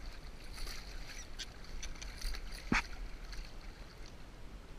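Scattered light clicks and water splashing as a hooked smallmouth bass is reeled in, with one sharp click nearly three seconds in.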